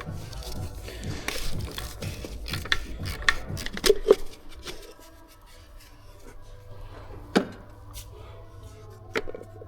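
Scattered clicks, clanks and scrapes of tools and metal parts being handled during engine disassembly, the loudest knocks about four seconds in and again past seven seconds, over a low steady hum.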